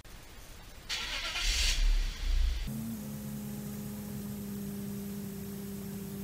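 BMW E39 530i's straight-six petrol engine being started: the starter cranks for about a second and a half, then the engine catches almost three seconds in and settles into a steady idle.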